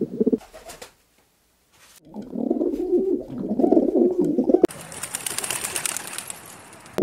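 Rock doves (feral pigeons) cooing, a low warbling coo that fades out just after the start and comes again after a short pause. About two-thirds of the way in, the cooing stops and a pigeon's wings flap quickly as it flies in.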